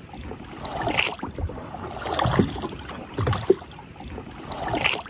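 Water lapping and splashing against the side of an inflatable dinghy as it is pushed through shallow water, rising in uneven surges about every second or so.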